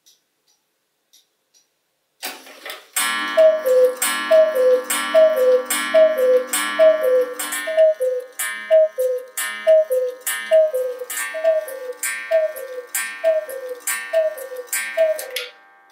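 Mechanical 8-day Black Forest cuckoo clock striking the hour: the two-note cuckoo call repeats about a dozen times, a little over once a second. Each call comes with a metallic strike on the clock's steel chime.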